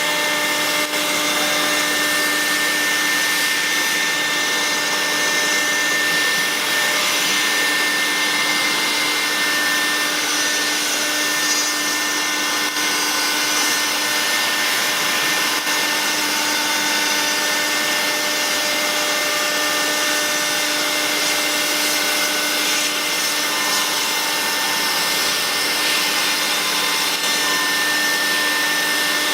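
CNC router spindle running steadily with a constant whine, with the hiss of cutting or air noise over it.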